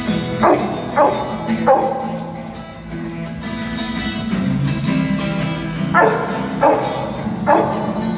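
A dog barking over acoustic guitar strumming, two runs of three barks a few seconds apart.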